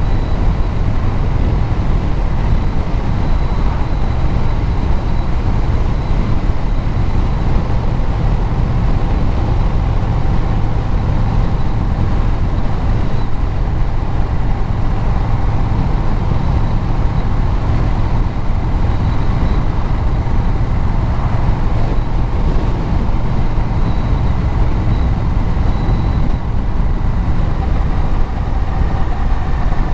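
Engine and road noise from a vehicle cruising at a steady pace: a loud, constant low rumble with a faint thin whine above it.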